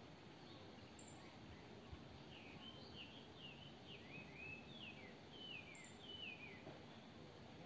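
Faint bird calls over quiet outdoor background noise: a string of short chirps, each sliding down in pitch, through the middle few seconds.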